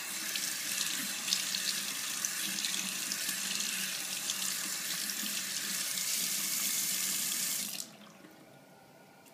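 Water running steadily from a bathroom tap, a full rushing spray that cuts off abruptly about eight seconds in.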